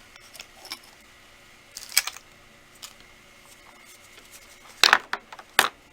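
A few light clicks and taps from small hard resin fridge magnets being handled and set down: one about two seconds in and two or three close together near the end.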